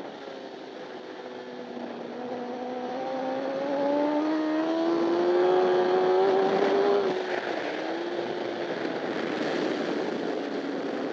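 Honda CBR1000RR superbike's inline-four engine heard from on board, accelerating hard with its pitch rising steadily for about seven seconds. Near the end a gear change drops the revs briefly before it pulls on again, over a steady rush of wind.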